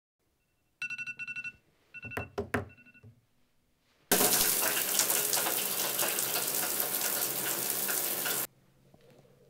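A phone alarm beeping rapidly, silenced after a couple of seconds with a few taps, then a shower running hard for about four seconds before cutting off suddenly.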